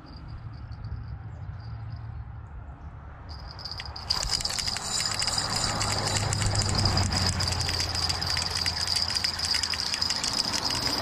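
Insects singing in one steady high-pitched tone over a low hum. About four seconds in, a louder rushing, crackling noise comes in suddenly and holds.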